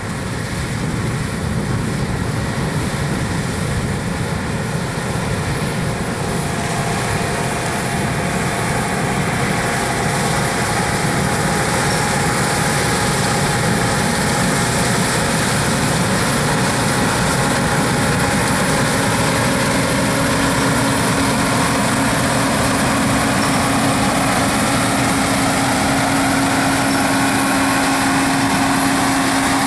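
Harvest machinery running steadily with engine noise. It grows slightly louder over the first several seconds, and a steady low hum joins about two-thirds of the way through.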